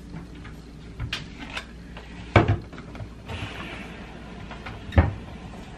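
Knocks and thuds of household handling at a front-loading washing machine and a plastic detergent bottle. There are two sharp knocks, about two and a half and five seconds in, with softer taps between them.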